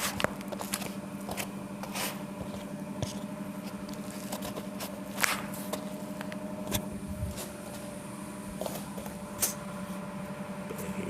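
A steady low hum with scattered light clicks and rustles of handling, the sharpest about five and nine seconds in.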